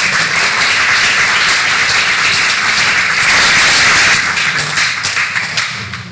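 Audience applauding: dense clapping that dies down near the end.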